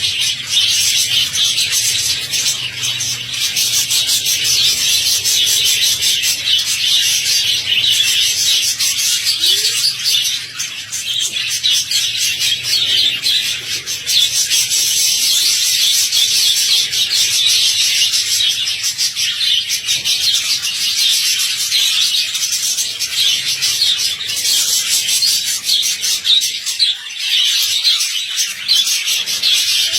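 A flock of budgerigars chattering all at once: a dense, continuous, high-pitched twittering with no pause.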